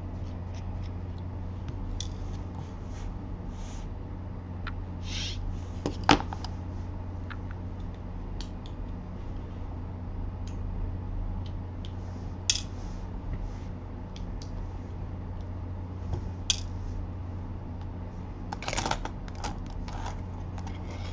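Scattered small clicks and taps, as of tools or a phone being handled on a work bench, over a steady low electrical hum. One sharper click comes about six seconds in, and a quick cluster of clicks comes near the end.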